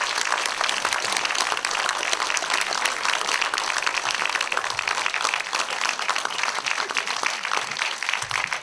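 Live audience applauding: dense, steady clapping from a seated crowd, thinning a little near the end.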